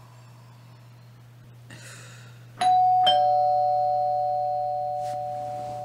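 Two-tone doorbell chime: a higher ding about two and a half seconds in, then a lower dong half a second later, both ringing on and slowly fading.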